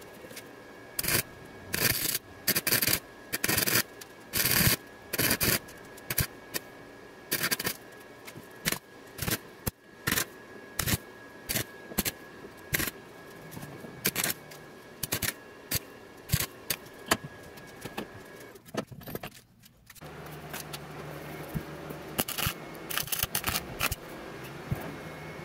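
Wire-feed welder arcing on steel square tubing in short, irregular crackling bursts, stopping and restarting as a string of tack and stitch welds is laid down.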